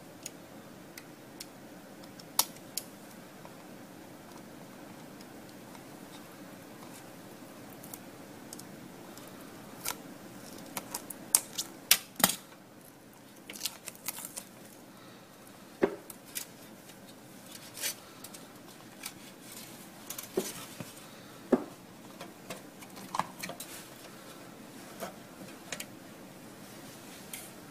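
Scattered sharp clicks, snips and taps from hand work on a car radio unit: a red-handled cutter working a small dark pad, and the radio's metal case being handled. A steady low hum runs underneath.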